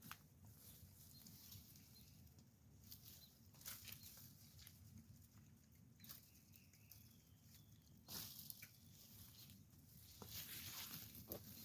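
Near silence with faint, scattered clicks and short rustles.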